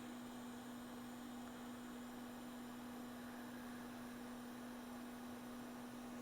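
Hot air rework station blowing on a reballing stencil: a faint, steady low hum over a light hiss of air.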